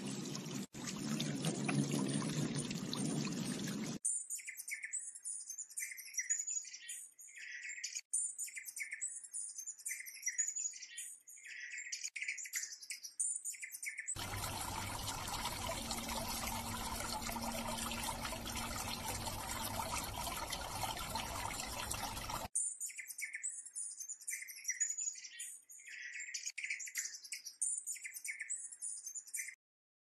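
Water from a small birdbath bubbler fountain splashing steadily, giving way about four seconds in to quick, high-pitched bird chirps in clusters. The splashing comes back for several seconds midway, then the chirping resumes and cuts off just before the end.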